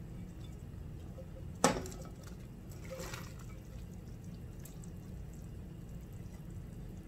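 Chopped vegetables tipped from a glass bowl into a pot of broth, splashing in, over a steady low hum. One sharp knock comes about a second and a half in.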